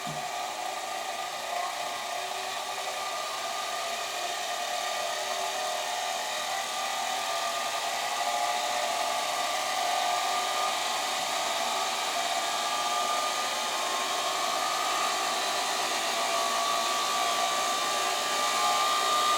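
Ceiling fan running with a steady whir and rushing air, slowly getting a little louder. A faint motor whine near the end edges up in pitch as the fan picks up speed.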